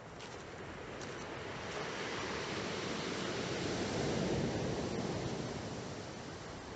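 Black Sea waves washing onto the shore: the surf swells to a peak about four seconds in, then fades.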